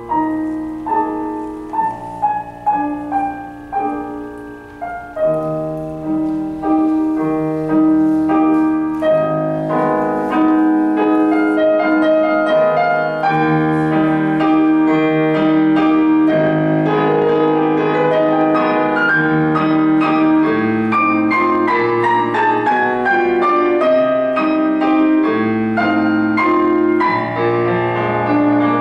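Solo piano music played on a digital stage piano: separate notes in a falling line for the first few seconds, then fuller, continuous playing with chords and a bass line from about five seconds in.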